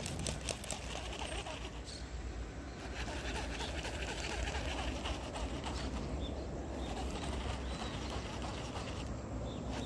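Wind rumbling steadily on the microphone, with birds calling faintly and a few light clicks near the start.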